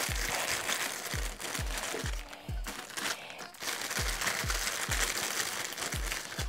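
Background music with a steady beat of deep kick drums, about two a second, over a steady hiss.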